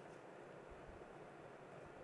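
Near silence: faint steady room hiss.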